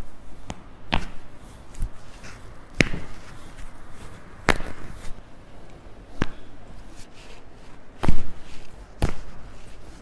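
Upper-back joints cracking under a chiropractor's repeated downward hand thrusts on the thoracic spine: a series of sharp pops and clicks every second or two, the loudest near the end.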